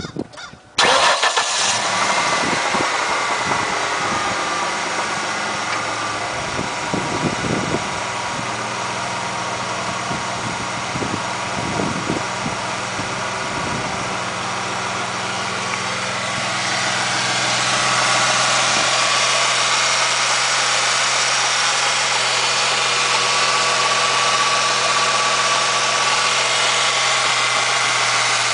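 2003 Ford Mustang engine starting about a second in, then running steadily at idle. The owner takes its knocking for piston slap and rod knock.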